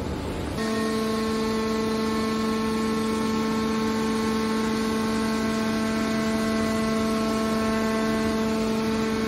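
Hydraulic scrap-metal baler's power unit running, a steady pitched hum from its pump and motor that sets in within the first second, while the press-box lid cylinder swings the lid closed.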